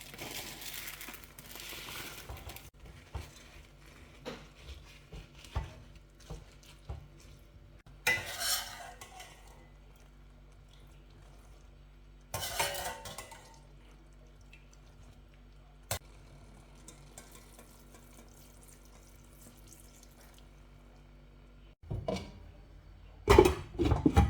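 Cookware and metal utensils clattering and scraping in short bouts while plov is cooked, with the loudest knocks near the end. A steady low hum runs underneath.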